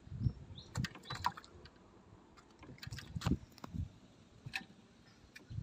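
Scattered sharp clicks and a few dull knocks from handling fishing tackle in a wooden boat while a small fish is taken off the hook.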